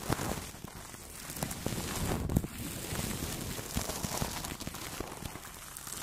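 Two soft makeup brushes swept over a Blue Yeti microphone wrapped in plastic cling film, making close, uneven scratchy rustling and crinkling, with a sharper tick a little after two seconds in.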